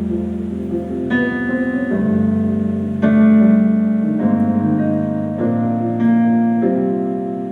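Keyboard playing slow sustained chords that change about once a second, the lower notes shimmering with a wavering tremolo.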